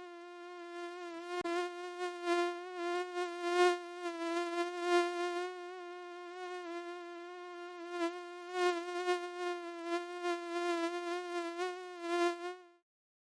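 Mosquito buzzing sound effect: a steady, slightly wavering hum that swells and fades in loudness and cuts off abruptly near the end.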